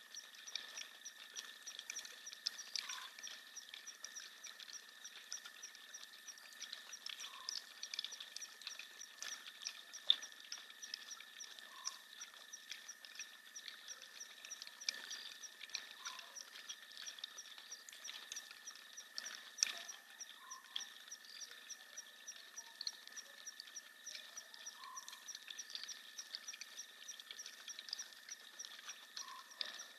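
Night chorus of insects and frogs: a steady high trill and rapid chirping ticks, with a short lower call repeating about every four to five seconds. Two sharp clicks stand out, about ten seconds in and shortly before twenty.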